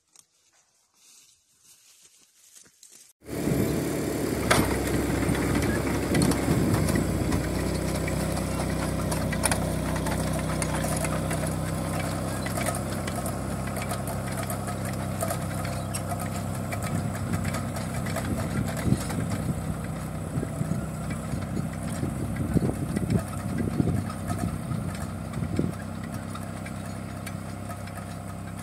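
Small crawler tractor running steadily while working a rear-mounted rotary tiller through the soil, a steady engine note with irregular clatter from the tiller. It comes in suddenly about three seconds in, after a few seconds of faint sounds.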